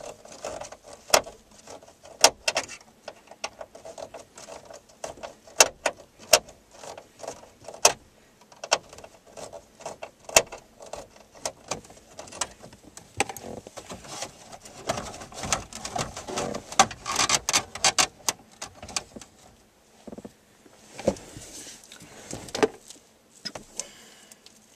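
Clicks, knocks and rattles of plastic and metal as a car stereo head unit is worked loose with a screwdriver and slid out of a Chevrolet Cavalier Z24 dash. The sharp clicks come irregularly throughout and are thickest in a busy stretch around the middle.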